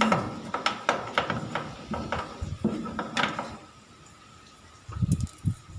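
Clicks and light knocks of hands working loose the motor capacitor inside an opened tumble dryer, irregular for the first three seconds or so, then a pause and a few dull thumps near the end.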